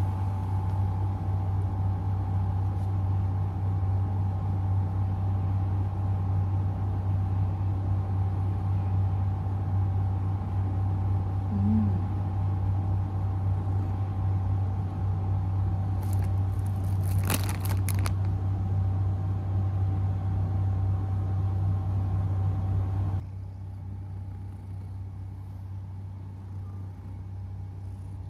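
Domestic cat purring steadily close to the microphone while being petted, a continuous low rumble with a faint steady tone alongside. There is a brief rustle of handling near the middle, and about 23 s in the purring turns quieter and muffled as the microphone is covered.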